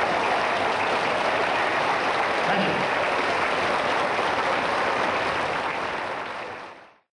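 Large audience applauding, a steady dense wash of clapping that fades out near the end.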